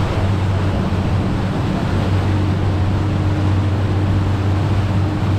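Ski boat's engine running steadily under way, a constant low hum over the rush of water from the churning wake.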